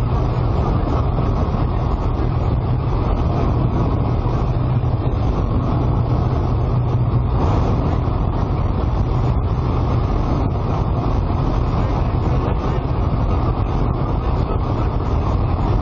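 Steady loud drone of a light aircraft heard inside the cockpit: engine noise and rushing air, with a constant low hum.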